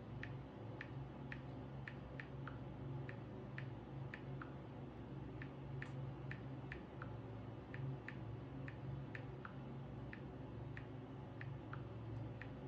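Short, light ticks, about two a second at uneven spacing, over a steady low hum.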